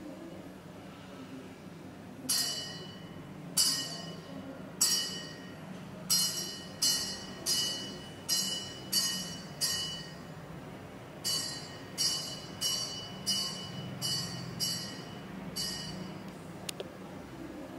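Electronic or experimental soundtrack: a metallic, bell-like strike repeated over a dozen times in uneven groups, each ringing briefly and fading, over a low steady hum.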